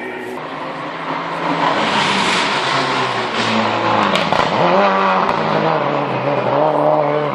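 Rally car engine revving hard, its pitch climbing and dropping again and again with the gear changes, louder from about a second and a half in as the car comes closer.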